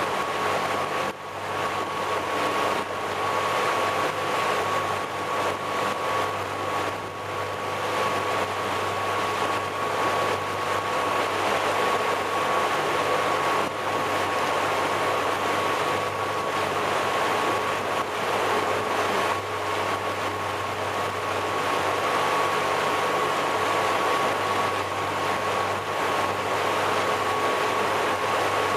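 350 CID V8 MerCruiser inboard/outdrive engine running steadily with the boat under way, a constant drone with a thin high tone running through it, over the rush of the churning wake.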